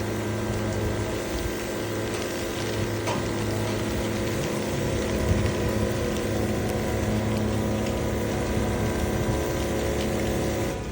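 Haul-out machinery lifting a boat out of the water, running with a steady hum and a gear-like rattle, dropping away near the end.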